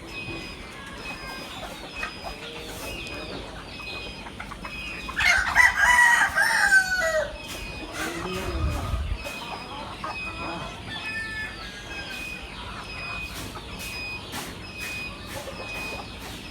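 Rooster crowing once, a long call starting about five seconds in that falls away at its end, over quieter clucking hens. A faint short high chirp repeats at an even pace throughout.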